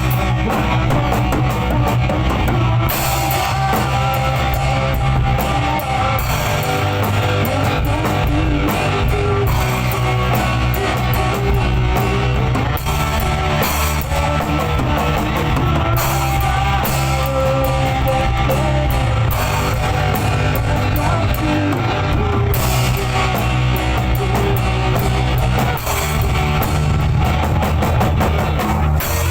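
Rock music played loud on drum kit and electric guitar, running without a break.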